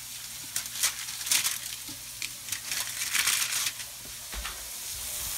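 Crinkling, crackling handling noises as another raw burger patty is taken from its wrapping, over burger patties sizzling in a skillet. The sizzle grows louder near the end.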